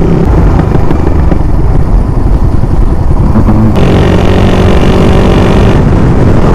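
Motorcycle engine running while riding, under heavy wind rumble on the microphone. A steadier pitched engine tone comes in sharply a little past the middle and holds for about two seconds.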